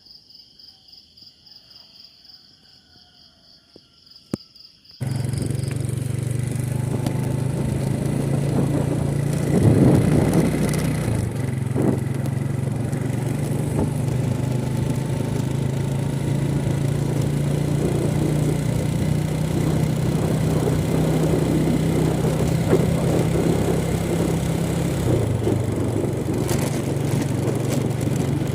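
Crickets trilling in a steady pulsing chirp. About five seconds in it cuts abruptly to a small motorcycle engine running steadily with wind and road noise, as when riding. The engine's pitch holds steady, with a slight drop near the end.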